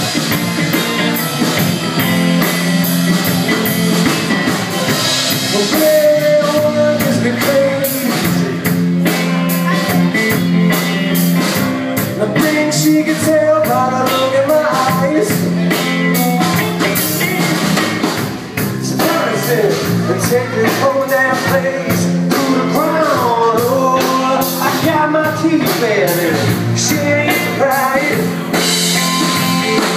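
Rock band playing an instrumental stretch of a blues-rock song: drum kit and bass under a lead melody that bends and slides in pitch through the middle of the passage.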